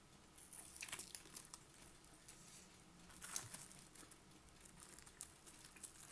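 Faint crisp crunching and crackling from raw green onions being chewed, strongest about a second in and again about three seconds in.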